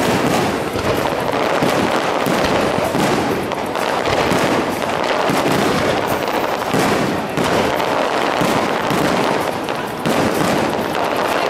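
Fireworks display: aerial shells bursting one after another in quick succession, their bangs and crackle overlapping into a continuous loud barrage.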